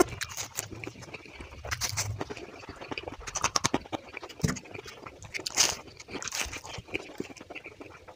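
Close-miked chewing of pastry, with irregular crunches and wet mouth clicks.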